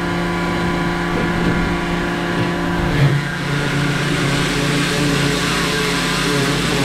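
HiKOKI FAW110 high-pressure washer running steadily: the hum of its motor and pump under the hiss of the water jet spraying plastic fan units. A brief louder knock about three seconds in.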